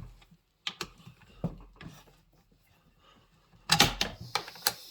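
Hand tools and chainsaw parts being handled while fasteners come off a chainsaw on a workbench: scattered clicks and knocks, with a louder clatter about four seconds in.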